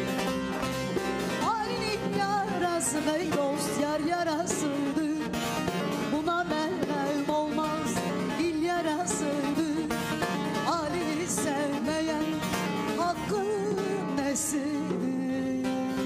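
Turkish folk song (türkü) with bağlama and keyboard accompaniment. About a second and a half in, a woman's voice enters with long, ornamented, wavering sung phrases over the instruments, and the music turns instrumental again near the end.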